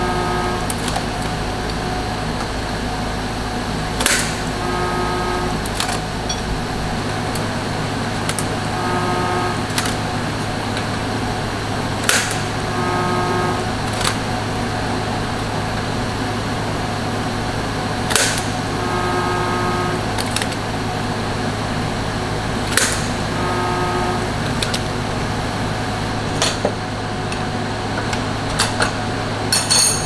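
TIG welding torch making short tack welds on steel grate bars. Every four to five seconds the arc strikes with a sharp crackle and buzzes briefly, over a steady electrical hum. There are several quick crackles near the end.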